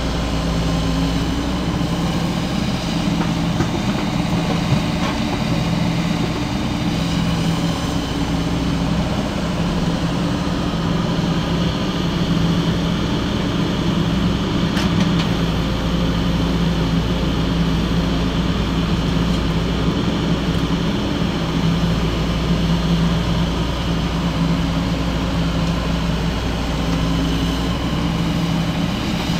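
Heavy diesel engine of construction machinery running steadily, with an even low hum throughout.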